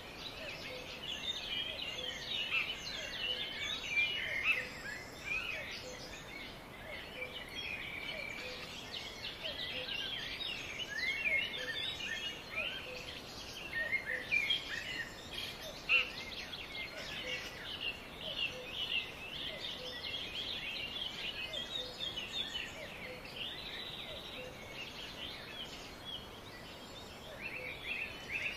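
Many birds chirping and calling in a dense, overlapping chorus of short high calls and trills, with a faint lower note repeating about once a second.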